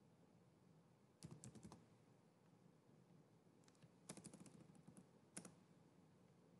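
Faint typing on a computer keyboard: a quick run of keystrokes about a second in, then a longer run from about four to five and a half seconds in.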